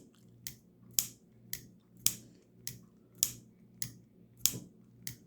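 CJRB Pyrite Light button-lock pocket knife being flipped open and shut over and over. Sharp metallic clicks come about twice a second, alternating louder and softer, as the blade snaps out and locks and then closes.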